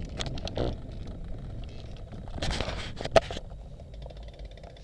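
A road bike being ridden, heard through the bike-mounted camera: wind rumbling on the microphone over tyre and road noise, with scattered clicks and rattles and one sharp tap a little after three seconds in.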